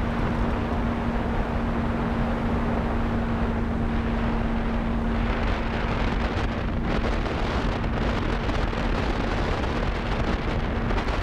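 Electric motor and pusher propeller of a Skyhunter FPV plane running at steady cruise throttle, a constant hum under the rush of airflow over the onboard camera's microphone.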